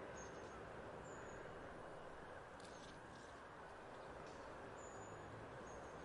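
Quiet outdoor park ambience: a steady low background hum with a few faint, short high chirps of small birds.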